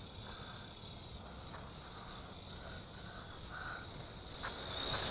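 JJRC H98 micro quadcopter's motors and propellers giving a faint, high-pitched whine that wavers slightly in pitch and grows louder about four and a half seconds in as the drone comes closer overhead.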